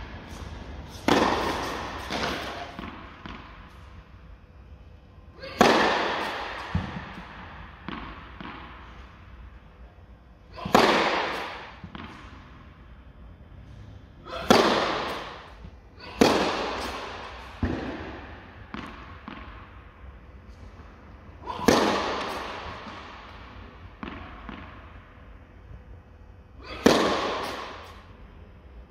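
Tennis racket striking a tennis ball hard about eight times, several seconds apart, each hit ringing on in a long echo, with fainter knocks of ball bounces between.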